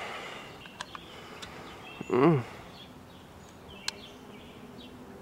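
A short closed-mouth vocal sound, rising then falling in pitch, made through lips stapled shut, about two seconds in. A few faint sharp clicks come before and after it, one near the end.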